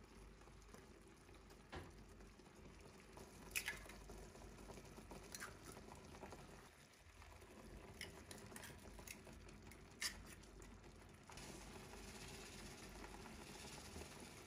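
Tteokbokki sauce simmering faintly in a frying pan, a soft bubbling hiss that grows a little louder near the end. A few sharp clicks sound over it as eggs are cracked over the pan.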